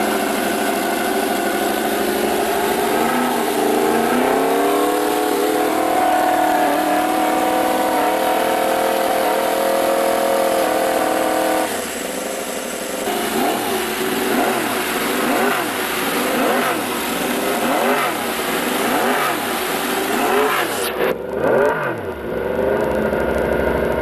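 Yamaha YZR-M1 MotoGP bike's inline-four engine revving. Its pitch climbs a few seconds in and holds high. About halfway it drops, then is revved up and down in quick repeated blips.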